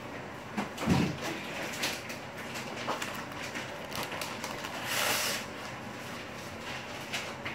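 Scattered knocks and clicks of things being handled off camera in a kitchen, with a low thump about a second in and a short hiss about five seconds in.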